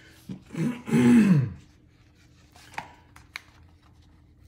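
A short wordless vocal sound with a falling pitch about a second in, then a few faint light clicks and rustles as paper backing is peeled off sugar cookie dough in a ceramic baking dish.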